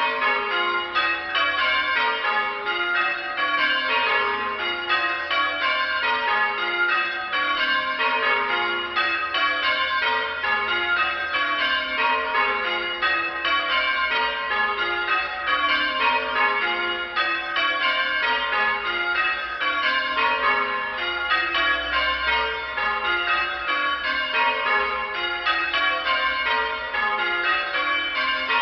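Church bells being change-rung: the bells strike one after another from highest to lowest, each round taking about two seconds and repeating without a break.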